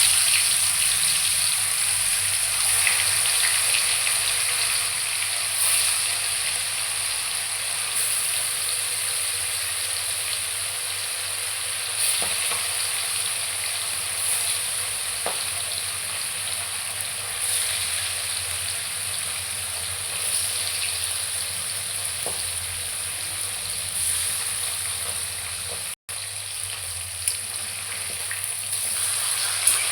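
Fish frying in hot oil in a pan: a steady sizzle with scattered crackles, which breaks off for an instant once near the end.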